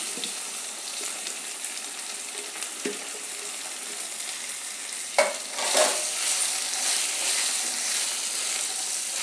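Sliced boiled taro root (arbi) sizzling in hot mustard oil in a non-stick kadhai, with a few sharp knocks of a spatula against the pan. The sizzle grows louder a little past halfway, as the pieces are stirred into the oil.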